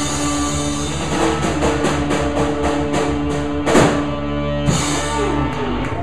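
Rock band playing live: electric guitars, bass and a drum kit, with a steady cymbal beat and two loud crashes about a second apart past the middle.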